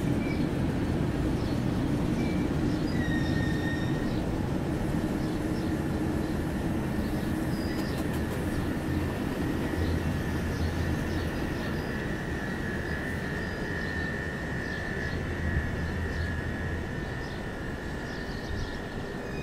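Red-and-white double-deck passenger train running on through the station and moving away: a steady rumble of wheels on rails that slowly fades. A thin, steady high whine comes in about three seconds in and holds almost to the end.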